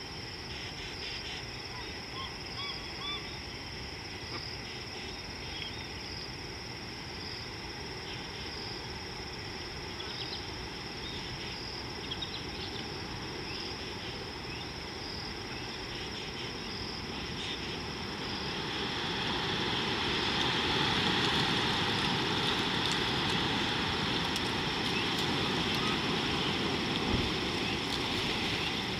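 Outdoor bush ambience: a steady high insect drone pulsing a little more than once a second, with scattered short bird chirps. About two-thirds of the way through, a broad rushing noise swells up and holds to the end, louder than the insects.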